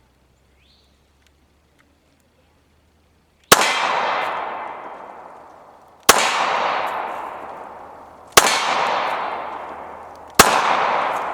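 Four single shots from a Glock 21SF pistol in .45 ACP, fired a little over two seconds apart, each followed by a long echo that dies away.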